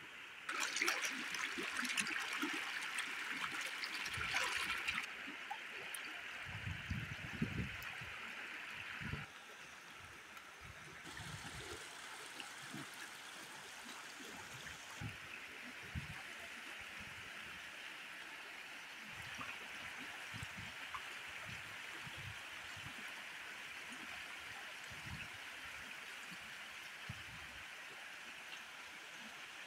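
Floodwater of a rain-swollen stream flowing and splashing over rocks and through reeds, a steady rushing hiss, loudest for the first few seconds. A few low thumps come in around the seventh second.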